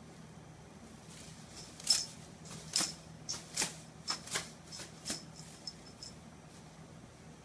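A shiny tinsel cat wand toy being shaken, giving about nine quick crinkly swishes between about two and six seconds in.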